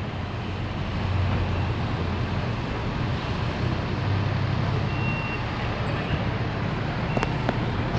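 Steady hum of street traffic and idling vehicle engines, with a short high beep about five seconds in.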